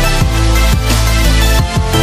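Electronic background music with a heavy bass line and a steady drum beat.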